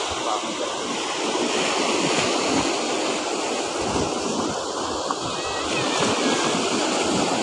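Small waves breaking and washing up over a pebble shore, a steady rush of surf, with gusts of wind buffeting the microphone.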